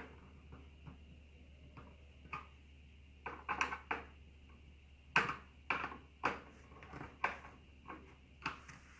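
Screwdriver working the small screws of a snare drum's snare-wire clamp, making scattered light metallic clicks and knocks in short clusters as the screws are tightened down on the snare strap.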